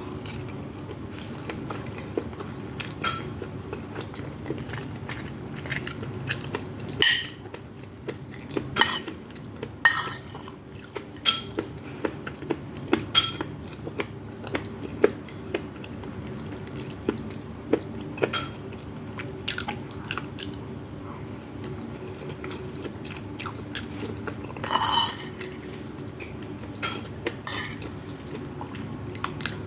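Spoon and fork clinking and scraping on a plate as food is eaten, with chewing, in short scattered clicks over a steady low hum.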